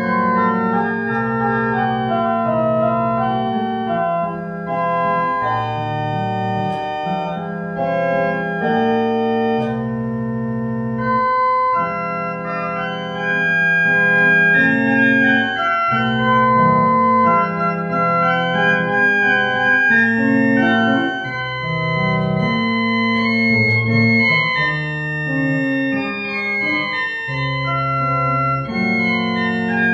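Church organ playing a hymn tune in sustained chords, with no singing.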